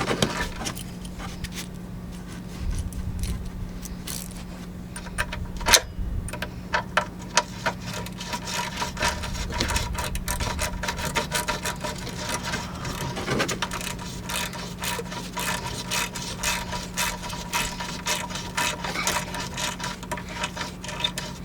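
Ratchet wrench clicking in short strokes as it turns a thread tap through a hitch bolt hole in the vehicle frame, chasing rust and gunk out of the threads. The clicks get denser partway through, with a few louder knocks, over a steady low hum.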